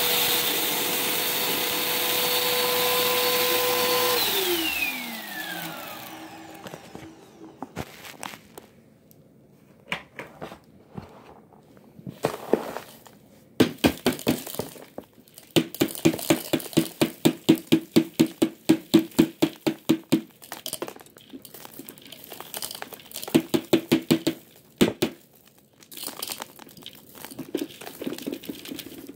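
Vacuum cleaner motor running steadily with a high whine, switched off about four seconds in, its pitch falling as it winds down. Then come scattered clicks and knocks, with a quick run of clicking at about four a second in the middle.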